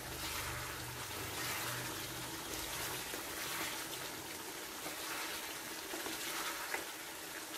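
Chicken pieces in a thin masala gravy simmering and sizzling in a nonstick pan while a spatula stirs through them: a steady wet cooking noise.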